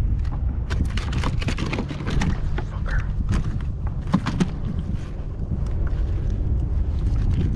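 Rumbling wind and water noise with many irregular sharp knocks and splashy slaps, typical of choppy waves hitting a plastic kayak hull.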